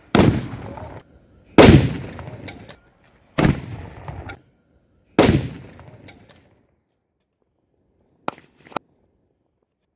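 Firecracker blasts inside a wooden speaker box through its bass port: four loud sudden bangs about a second and a half to two seconds apart, each trailing off in a ringing echo, then two short sharp cracks a little after eight seconds.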